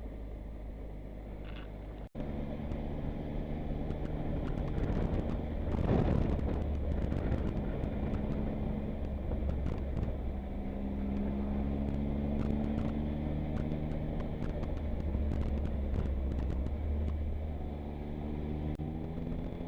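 Motorcycle engine running while riding, with wind noise over it; the engine note climbs in rising sweeps as it accelerates, around the middle and again near the end.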